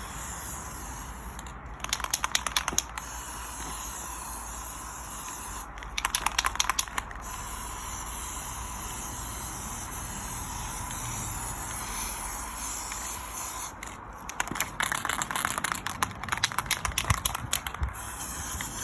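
Aerosol marking-paint can: rapid rattling of the can in three spells, over a steady hiss, as the trench line is marked out on the ground.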